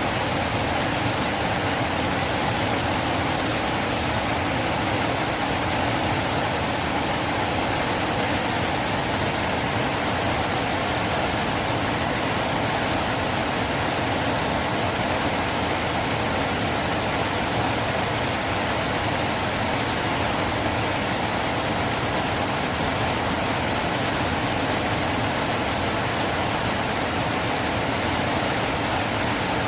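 River water flowing, a steady even rushing hiss that does not change.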